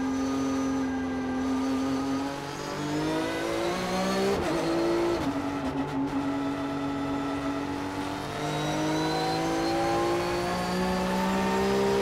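Porsche Sprint Challenge race car's flat-six engine at speed on track, heard from inside the cabin. It holds a steady note, changes pitch abruptly around a gear change about four to five seconds in, then climbs steadily in pitch under acceleration through the last few seconds.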